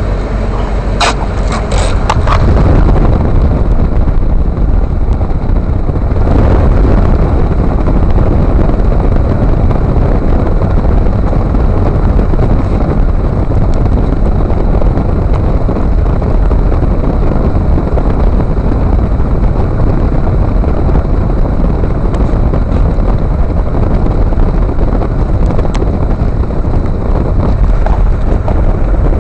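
Steady road rumble and wind buffeting on a camera mounted in the front wheel well of a lifted Toyota Tundra as it drives. A few sharp clicks of the camera being handled come first, and the rumble builds to full level about two to three seconds in.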